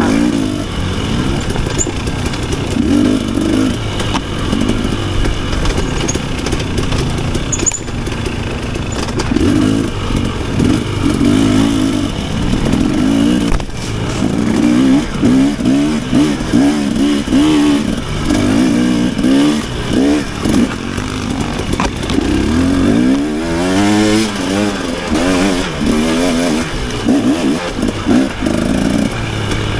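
Dirt bike engine revving up and down again and again with constant throttle changes, with one long fall and climb in pitch about three quarters of the way through.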